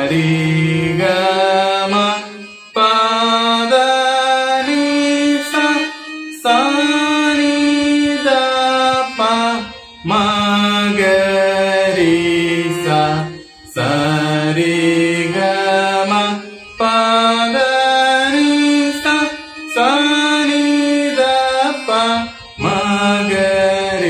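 A man singing the swaras sa ri ga ma pa dha ni sa along with the same notes played on an electronic keyboard. He goes up and down the D-sharp major scale in repeated phrases of about three seconds, with short breaks between them.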